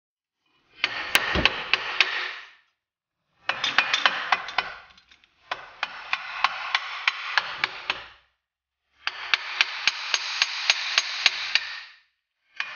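Hammer with cloth taped over its head tapping a disc brake caliper down over a new rotor. The taps come in four bursts of quick strikes, about five a second.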